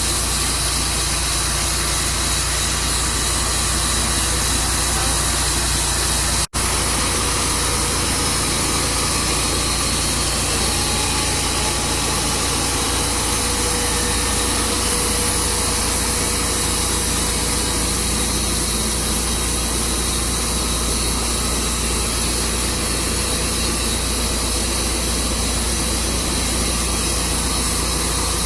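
A portable sawmill running steadily, its engine giving a constant loud drone over a haze of noise. The sound drops out for an instant about six and a half seconds in.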